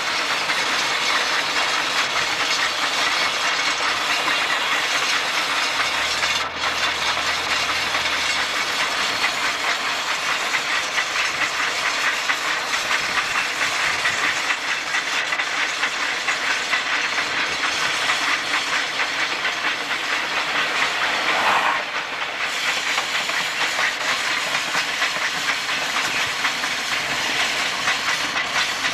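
Steady rushing noise from a car driving alongside Durango & Silverton K-36 steam locomotive 481, with car and wind noise mixed with the train's hiss and running sound. A brief rising swell comes about two-thirds of the way through.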